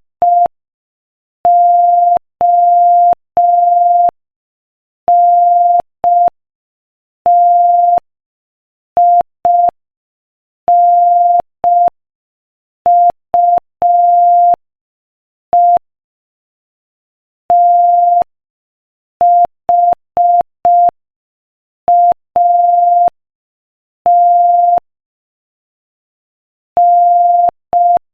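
Morse code sent at 5 words per minute: a single steady mid-pitched beep keyed on and off in short dits and long dahs, with longer pauses between letters and words.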